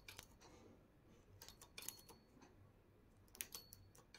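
Faint, scattered metallic clicks of a knitting machine's transfer tool and needles as stitches are hooked back onto the needle bed to double the knitted band; two of the clicks leave a brief thin high ring.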